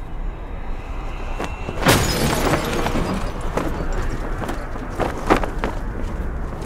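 Movie sound-effects mix of a city scene: steady street ambience, then a sudden heavy crash about two seconds in with a falling boom, followed by a few sharp cracks.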